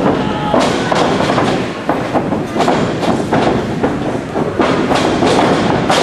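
Wrestlers' bodies thudding and slapping on a wrestling ring's canvas at irregular moments over steady crowd noise from the hall.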